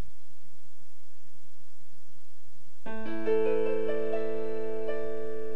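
Electronic keyboard playing in a piano voice. After a pause with only a faint low hum, notes come in about three seconds in. A few more are struck one after another and ring on together as a held chord.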